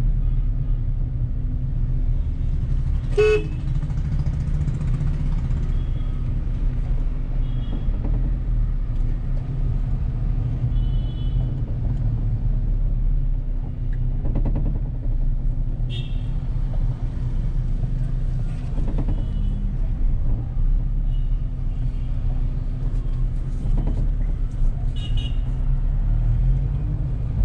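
Steady low rumble of a car driving through city streets, with short, high-pitched horn toots from other vehicles every few seconds.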